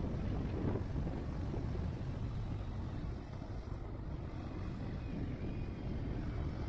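Motorcycle on the move, heard as a steady rumble of engine, tyre and wind noise with no changes in pitch.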